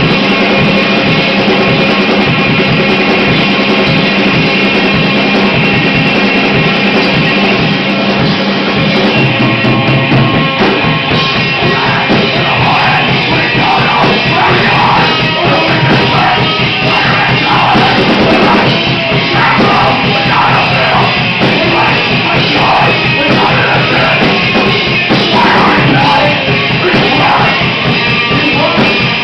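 Loud live rock band playing, with drum kit and heavy guitars. A shouted vocal comes in about a third of the way through.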